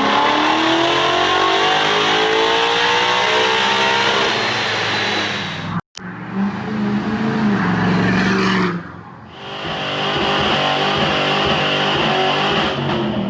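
A car engine running hard and revving, heard in two edited clips. In the first clip the engine note falls steadily over several seconds; the sound cuts off abruptly, and a second clip of the engine running follows.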